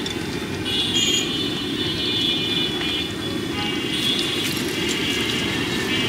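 Garlic chops deep-frying in a large wok of hot oil under a steady low rumble, with a few light metal clinks from a slotted steel spatula lifting fried pieces onto the wire draining basket. A thin high whine sounds on and off.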